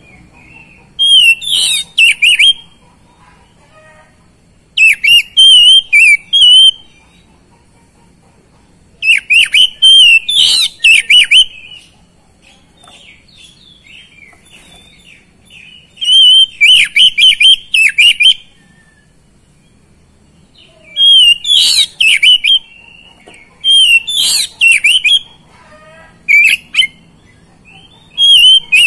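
Oriental magpie-robin singing: about seven loud phrases of rapid, varied whistled notes, each lasting one to two and a half seconds, with pauses of a few seconds between them.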